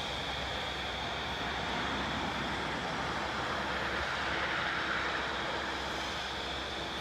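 A large engine running steadily, with a steady high whine over it and a slight swell a little past the middle.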